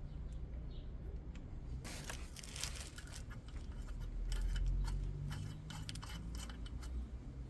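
Metal hand tools and parts clicking and rattling in quick, irregular taps from about two seconds in, over a steady low hum, while a turbocharger is being fitted.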